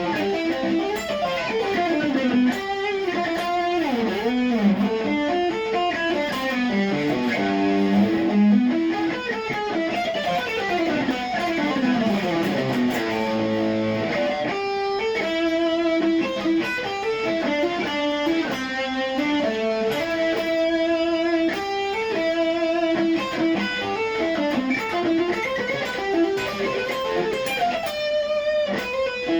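Cort X700 Duality II electric guitar played straight into an amplifier with no effect pedals: fast rising and falling single-note runs for about the first half, then longer held and repeated melody notes, with a quick flurry near the end.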